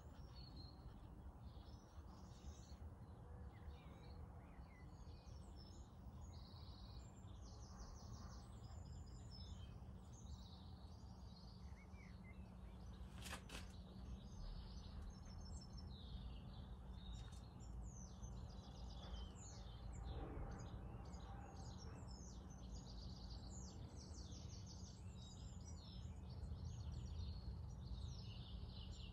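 Small birds chirping and singing in quick trills, faint, over a low steady hum. A single sharp click about thirteen seconds in.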